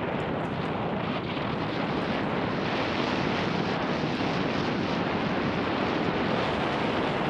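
Wind rushing over the microphone of a helmet-mounted Garmin VIRB 360 camera on a mountain bike moving at speed along a dirt trail, a steady noisy rush.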